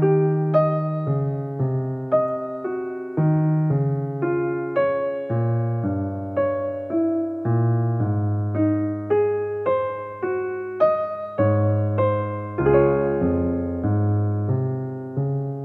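Solo piano background music: a gentle, unhurried run of single notes over low held bass notes, about two notes a second.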